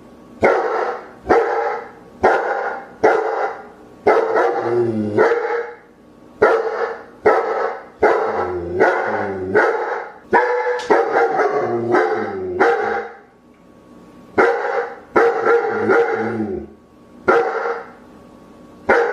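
German Shepherd barking over and over, about one bark every three-quarters of a second, with a short break about two-thirds of the way through.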